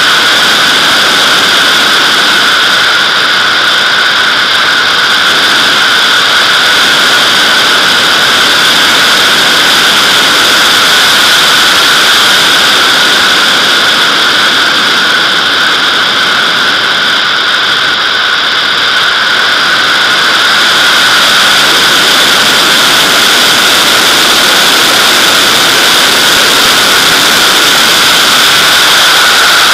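Loud, steady rush of airflow over a camera mounted on the back of a Nimbus-2 sailplane's fuselage in gliding flight, with a slight dip in level about two-thirds of the way through.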